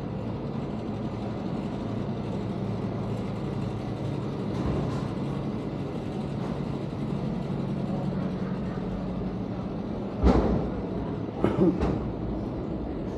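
Steady low engine hum of a vehicle running in a city street, with two short, loud knocks near the end.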